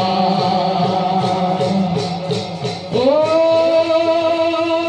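Music with singing for a bhaona dance-drama: a quick, even beat under steady tones, then about three seconds in a new long held note begins, rising briefly into pitch before it holds.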